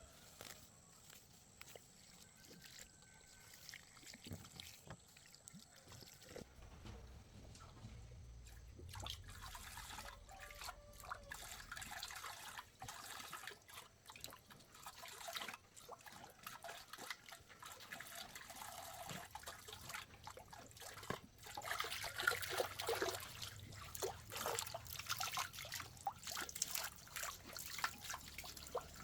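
Water trickling and splashing, mixed with many small clicks and knocks, growing louder about a third of the way in and again past two-thirds.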